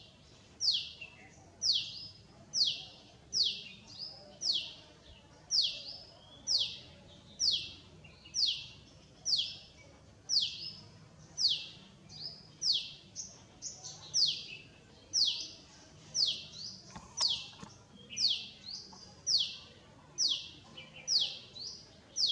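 A bird calling over and over, a single high, short note that slides downward, repeated steadily a little more than once a second.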